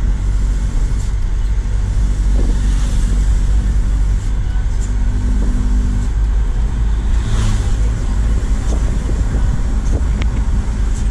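Truck engine pulling hard as it picks up speed, heard from inside the cab over a steady low road rumble.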